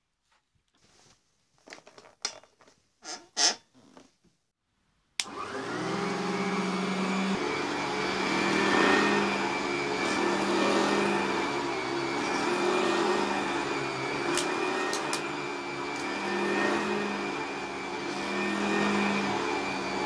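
A few light knocks as an early-1970s Hotpoint Light 'n' Easy upright vacuum cleaner is handled. About five seconds in, its motor is switched on and starts suddenly, then runs steadily with a high whine over a hum. The sound swells and dips as the cleaner is pushed back and forth over carpet, and a few faint ticks come about two-thirds of the way through.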